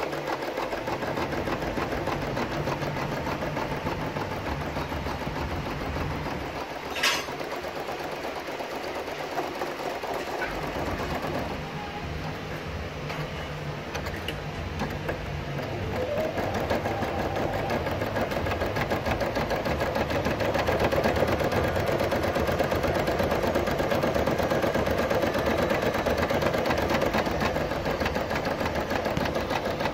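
Brother 700E domestic embroidery machine stitching lettering, its needle running in a steady mechanical chatter. A brief sharp click comes about seven seconds in, and the machine runs louder from about sixteen seconds on.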